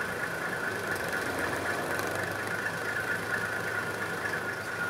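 Vehicle engine running steadily, with a steady high-pitched hum over it.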